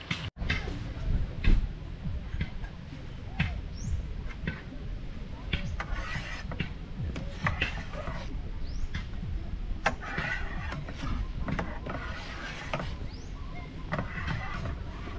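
A utensil scraping and tapping against the inside of a metal camping pot as food is stirred: irregular short scrapes and clinks, with a few brief squeaks, over a steady low rumble.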